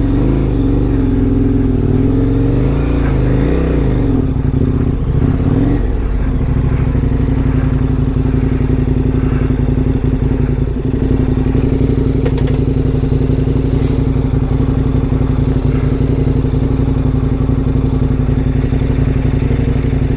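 KTM 1090 Adventure R's V-twin engine running at low speed, its pitch rising and falling for the first few seconds with the throttle, then holding steady. The engine sound stops abruptly at the very end.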